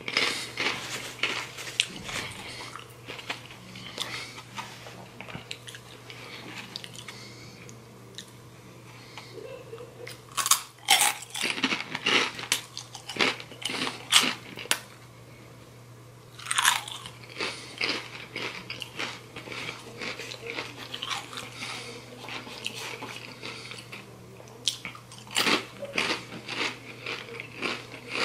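Crunchy Takis rolled corn tortilla chips bitten and chewed close to the microphone, with sharp crunches coming in clusters and the loudest bites about ten, fourteen, seventeen and twenty-five seconds in. A steady low hum runs underneath.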